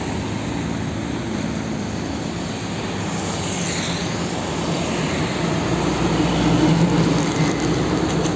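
Traffic noise as a Hino concrete mixer truck drives past with motorcycles alongside. Its engine and tyres grow louder as it comes close, loudest about six to seven seconds in.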